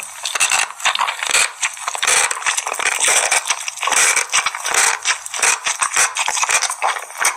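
Dense, continuous crackly rattling made of many quick small clicks: an ASMR trigger sound.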